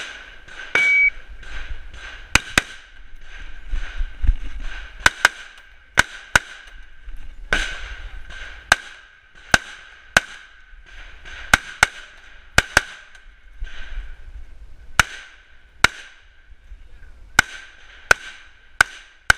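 A short electronic shot-timer beep about a second in, then an AR-style rifle firing about twenty shots at an irregular pace, many of them as quick pairs, as the shooter works through a match stage.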